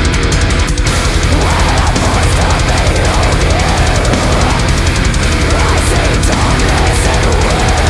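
Loud, dense heavy metal music.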